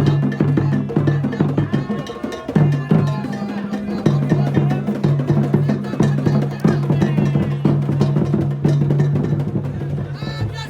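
Music with dense drum and percussion strokes over a steady low held bass tone.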